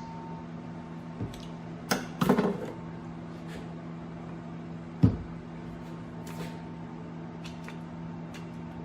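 A few light metal clicks and one sharp knock about five seconds in, from hand work swapping a grease nipple and greasing a snowblower gear reduction unit, over a steady low hum.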